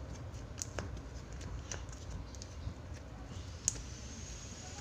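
White slime being kneaded and squeezed by hand in a small plastic tub, giving a scatter of small, irregular sticky clicks and pops, with one louder click about three-quarters of the way in.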